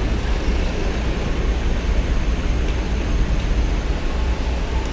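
Diesel trucks running at low speed as they move up to board a ferry, with a steady deep rumble and no distinct events.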